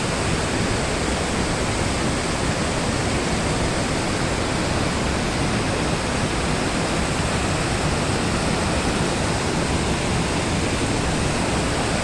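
Waterfall roaring: a steady, loud rush of falling water that does not change.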